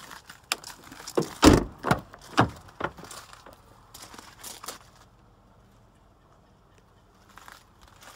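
Rear passenger door of an SUV being unlatched and opened: a quick run of clicks and clunks, loudest about a second and a half in, with a few lighter knocks after.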